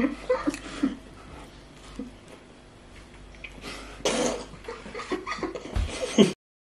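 A young man coughing in short noisy bursts while eating pizza, with the strongest bout about four seconds in and more near the end.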